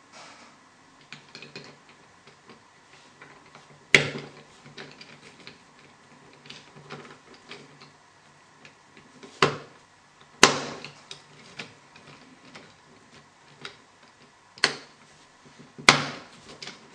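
3D-printed plastic parts of a planetary gear set handled and pressed together as the carrier is pushed on over its connecting pins: light scattered plastic clicks and rattles, with five sharp, louder clicks spread through it.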